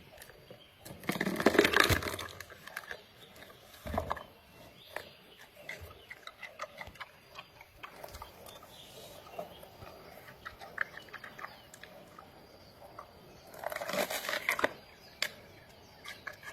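Panda eating: a run of small chewing and crunching clicks, with two louder noisy bursts about a second in and near the end.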